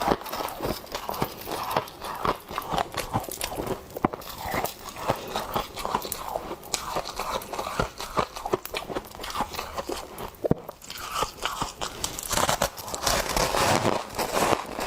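Close-up biting and chewing of a mouthful of frost, with irregular crisp crunches. The crunching grows denser and fuller near the end.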